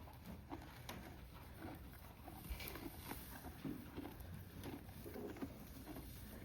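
Horse eating hay or alfalfa in a stall: faint, irregular soft crunching and rustling as it chews.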